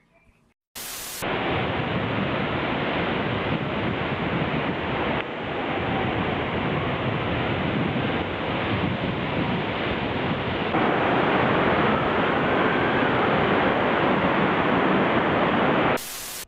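A short burst of TV-static hiss about a second in, then a steady loud rush of wind buffeting the microphone on a beach, stepping up in level a couple of times, and another short burst of static hiss near the end.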